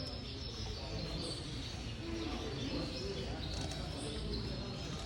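Many caged Gloster canaries chirping and calling in short, scattered notes, over a steady low hum of the hall.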